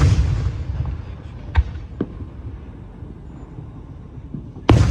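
Fireworks: a deep aerial shell burst at the start rumbling and echoing away, two sharp cracks about a second and a half and two seconds in, then another loud boom near the end.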